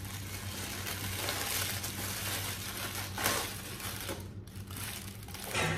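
Honeycomb kraft packing paper crinkling and rustling as it is pulled out of a cardboard box, with a couple of louder crackles.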